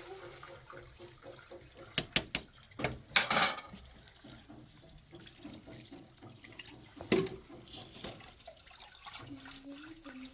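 Water splashing and trickling, with a few sharp knocks and clinks about two seconds in, a louder splash just after, and another knock near seven seconds.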